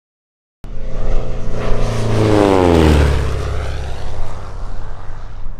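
Aircraft flying past, its engine note sliding down in pitch as it goes by, starting suddenly about half a second in.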